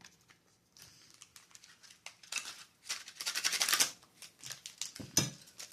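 Packaging of a Pokémon card mini tin rustling and crinkling in quick scratchy bursts as its contents are taken out, busiest about three seconds in, with a single knock a little after five seconds.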